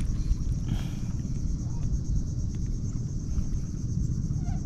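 Low, steady rumble of wind buffeting the microphone, over a thin, steady high-pitched insect drone.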